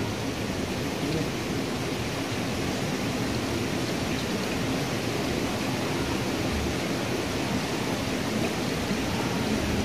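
Steady rushing and splashing of water pouring from an inlet pipe into a fish pond.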